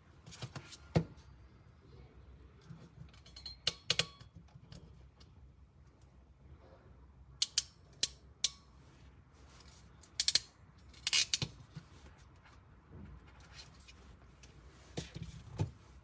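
Haicable LX-03B ratchet crimping tool clicking as its handles are squeezed to crimp a non-insulated terminal onto a wire. The clicks are scattered and sharp: three about half a second apart near the middle, and a quick cluster a few seconds later. Light clicks and taps of the terminal and tool being handled come in between.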